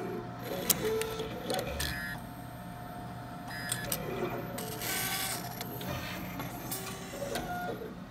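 Leica CV5030 automated glass coverslipper running its cycle: short motor whirs and sharp mechanical clicks from its slide-handling and coverslipping mechanism, over a steady hum, with a brief hiss about five seconds in.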